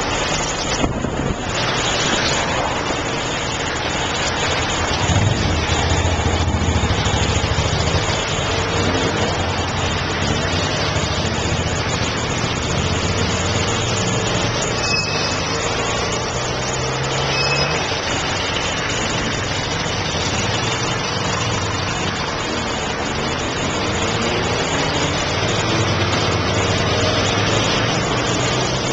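Road traffic heard from a moving bike: a steady rush of wind and road noise on the microphone, with vehicle engines running and rising and falling in pitch as the rider filters past.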